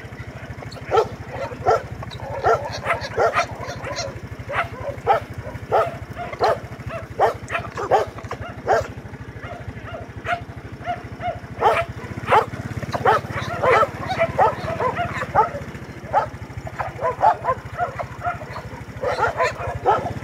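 Dogs barking and yipping, short sharp barks coming in quick irregular runs again and again.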